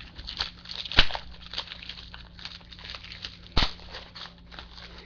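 Trading cards and card-pack wrappers being handled: light crinkling and rustling with small clicks, and two sharp knocks, about a second in and past three and a half seconds.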